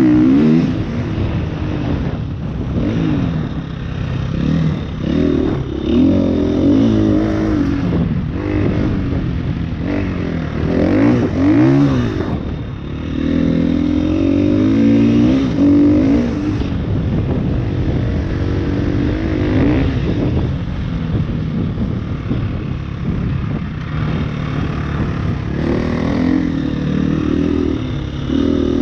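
KTM EXC-F 350's single-cylinder four-stroke engine being ridden hard, revving up and dropping back every second or two as the throttle is opened and closed.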